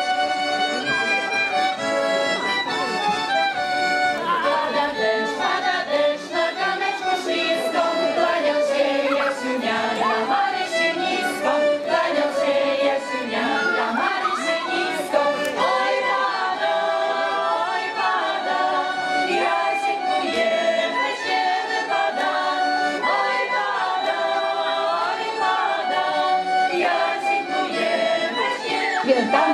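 Women's folk choir singing together to accordion and violin accompaniment. The first few seconds are the instruments alone, before the voices come in.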